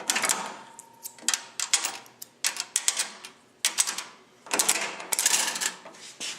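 Coin-operated capsule vending machine being worked: quick runs of mechanical clicking and rattling, about five in a row, as coins go in and the dispensing mechanism turns.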